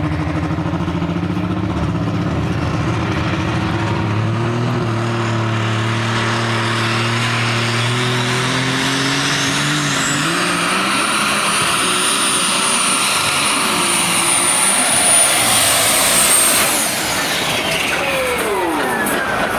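International Harvester super stock pulling tractor's turbocharged diesel engine revving up, then running at full power under load. About halfway through a high turbo whine rises and holds, then falls away near the end as the engine winds down.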